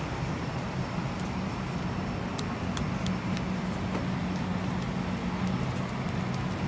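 Steady cabin air-conditioning noise inside a parked Airbus A320 during boarding: an even hiss over a low hum, with a few faint clicks around the middle.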